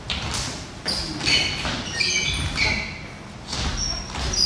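Dancers' sneakers squeaking and feet thudding on a hard hall floor during a group dance run-through, with many short, high squeaks scattered through it.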